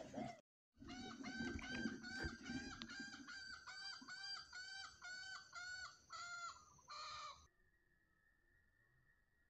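Green junglefowl hen clucking: a fast, even run of short, arched calls, about three a second, starting about a second in and cutting off abruptly about seven and a half seconds in.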